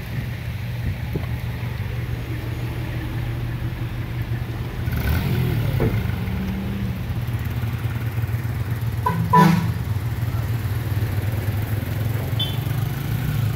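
Motorcycle engines on a wet road: one running steadily nearby while others pass, with a short loud sound about nine seconds in.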